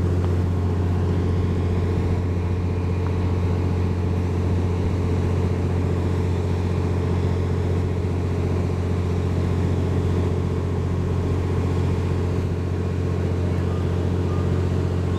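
Stationary JR West 87 series 'TWILIGHT EXPRESS Mizukaze' hybrid diesel-electric train idling, its diesel generator engine giving a steady low hum that does not change.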